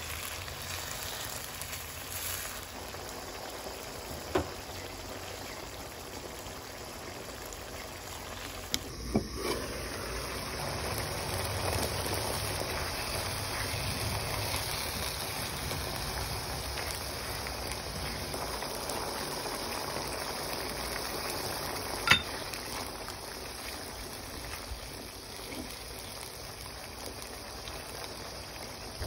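Ground pork and vegetables simmering in their liquid in a nonstick wok, a steady bubbling and sizzling hiss. A few short knocks break it, the loudest about two-thirds of the way through.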